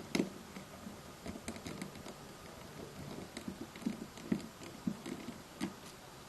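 Small screwdriver backing a tiny screw out of a mobile phone's plastic housing: light, irregular clicks, taps and scrapes.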